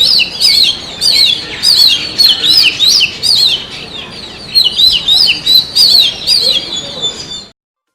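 Oriental magpie-robin (kacer) singing: loud, fast bursts of repeated down-slurred whistles, cutting off suddenly near the end.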